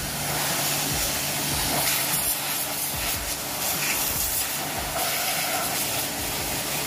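Aimex D7 1800 W electric pressure washer spraying a high-pressure jet of water onto the underside of a motorcycle: a steady hiss of spray with a steady low hum beneath it.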